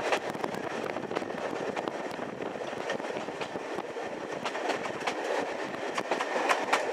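Railway carriage running along the track: a steady rumble of wheels on rail, with scattered sharp clicks that come several in quick succession near the end.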